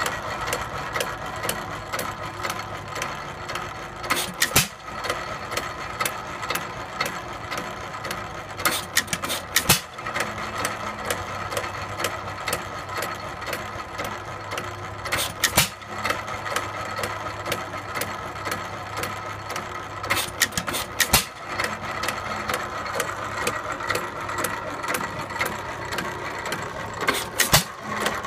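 1919 Hercules Model E 3 hp hit-and-miss stationary gas engine running on its governor. Loud sharp exhaust bangs come only every four to six seconds, sometimes two close together, with a steady clatter of valve gear and rotating flywheels as the engine coasts between firings.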